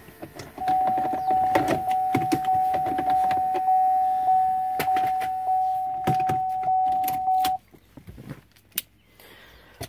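2013 Chevrolet Sonic's key-in-ignition warning chime sounding as steady beeping, one unchanging tone that starts about half a second in and stops about seven and a half seconds in; it signals the key left in the ignition. Under it, sharp plastic clicks and rattles come from the console trim and automatic shifter being worked.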